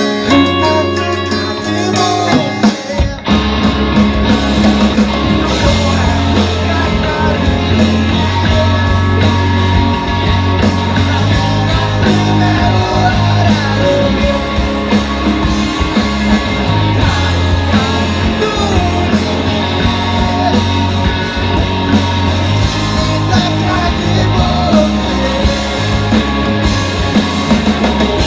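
Rock band playing a guitar-led instrumental passage. About three seconds in there is a brief break, and then the full band comes in.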